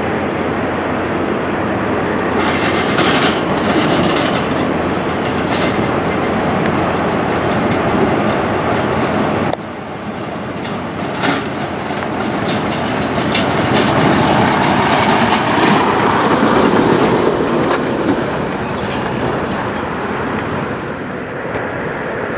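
Freightliner Cascadia semi trucks pulling trailers slowly: steady diesel engine running, with clicks and rattles from the trailers. The sound drops suddenly a little under halfway through, then swells as a truck turns and comes closer.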